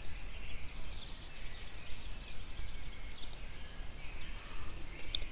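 Background room noise: a steady low hum with faint high chirps and a few light clicks.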